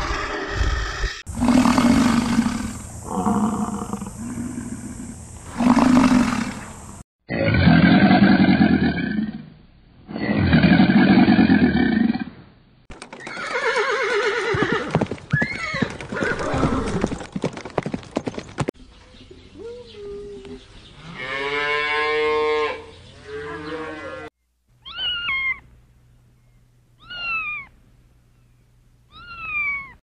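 A run of animal calls. First a brown bear gives several long, low growls and roars. Around the middle a horse whinnies in a wavering call, and near the end a cheetah gives three short, high chirps, each falling in pitch.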